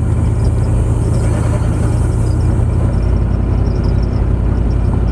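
Chevrolet 350 small-block V8 of a 1978 Oldsmobile Cutlass station wagon, heard from inside the cabin while driving at low speed: a loud, steady, deep rumble. The exhaust is disconnected at the catalytic converter, so the engine runs with an open, unmuffled exhaust.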